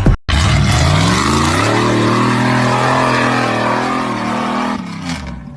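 Off-road vehicle engine revving: the engine note climbs about a second and a half in, holds at high revs, then falls away near the end.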